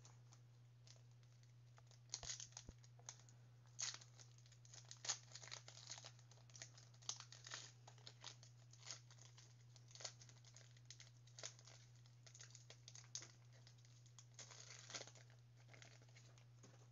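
Trading-card pack wrappers crinkling and tearing as packs are opened, in irregular crackles starting about two seconds in and stopping shortly before the end, over a steady low hum.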